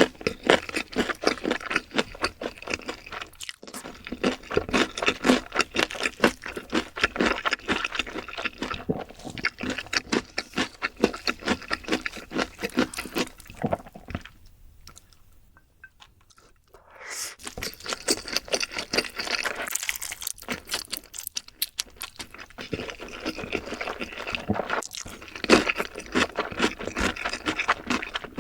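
Close-miked eating sounds: dense, rapid chewing and crunching with wet mouth noises, which stop for a couple of seconds about halfway through.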